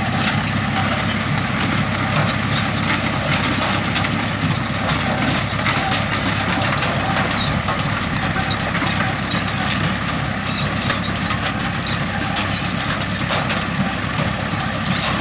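Massey Ferguson 5711S tractor's diesel engine running steadily while it tows an onion harvester, with a light, constant clatter of the machinery.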